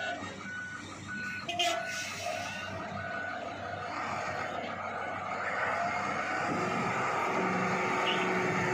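XCMG wheel loader's diesel engine running and picking up as the machine moves off, louder towards the end. A regular beeping alarm, about two beeps a second, sounds over it for the first three seconds and then stops.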